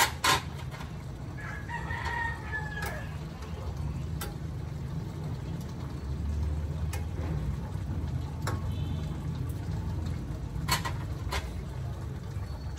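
A rooster crows once, about one and a half seconds in, lasting over a second and falling away at the end. A metal spatula knocks and scrapes against a steel wok at intervals, over a steady low rumble.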